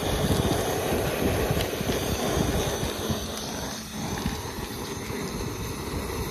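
Wind buffeting the microphone: an uneven low rumble that eases a little after about four seconds.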